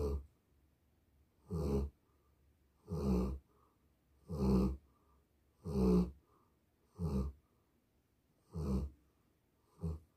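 Large dog snoring in its sleep, a rasping snore on each breath, about one every second and a half.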